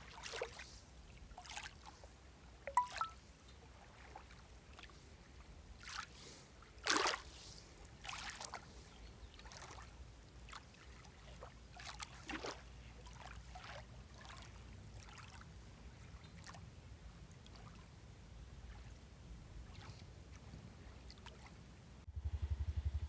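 Small lake waves lapping softly on a sandy shore, a faint wash with scattered gentle splashes. About a second before the end, a low steady rumble cuts in.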